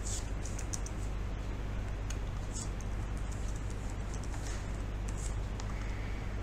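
Faint typing on a computer keyboard over a steady low hum of background noise.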